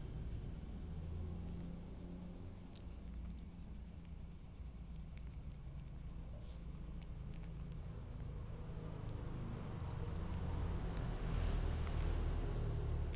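Crickets trilling steadily at one high pitch over a low rumble, with a few faint ticks now and then.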